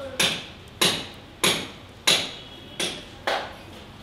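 Hand tool clicking against metal fittings on a motorcycle frame: six sharp clicks, about two thirds of a second apart, each dying away quickly.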